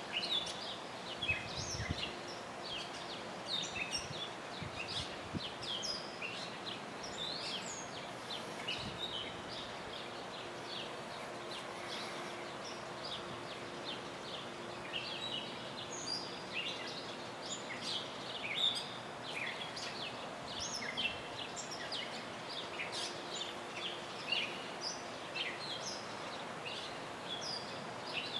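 Wild birds chirping and calling, many short high chirps overlapping, over a faint steady hum.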